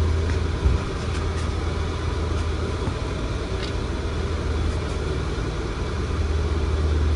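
Fantech BFRK 110 CFM inline bath fan running steadily, drawing air through the ceiling grille: a low hum under an even rush of air.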